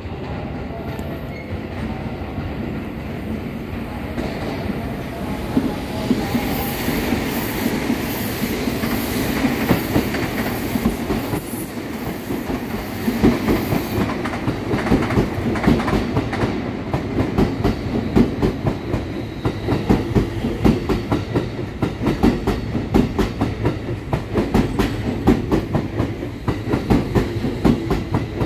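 Tokyo Metro 16000 series electric train arriving and rolling past, growing louder as it comes in. From about halfway on its wheels clack in a steady rapid rhythm over the rail joints.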